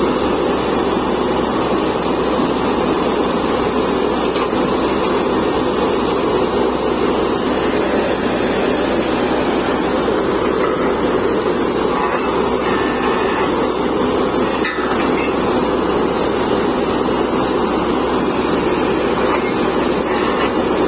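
Truck-mounted borewell drilling rig running steadily and loudly as its drill rod bores into the ground: the rig's engine and air compressor drone with a constant hiss over it.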